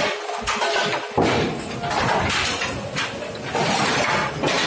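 Brunswick bowling pinsetter running, with bowling pins clattering and knocking against each other and the machine's metal parts in an irregular run of sharp knocks.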